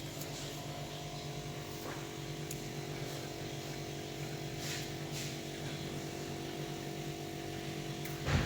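Refrigerator compressor running during a freon recharge, giving a steady hum, with a few brief faint hisses.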